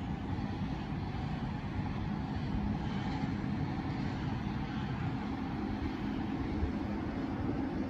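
Steady low rumble of city traffic heard from high above the streets, with no single vehicle standing out.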